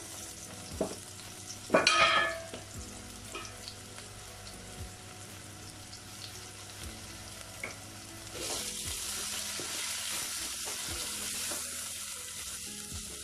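Chopped tomatoes and onions sizzling in hot oil in a stainless steel pot, stirred with a wooden spatula. One loud clatter comes about two seconds in, and the sizzling grows louder and hissier from about eight seconds on.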